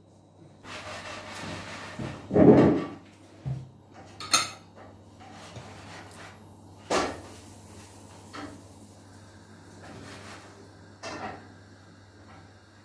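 Tableware handled on a table: a knife and fork cutting gözleme flatbread on a wooden board and plates set down, with a loud knock about two and a half seconds in, a sharp click a little after four seconds, then a few lighter knocks.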